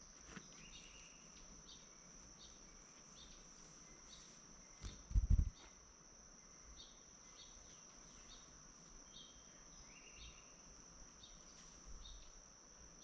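Insects calling: a steady high-pitched drone with short chirps repeating about twice a second. A brief low thump comes about five seconds in.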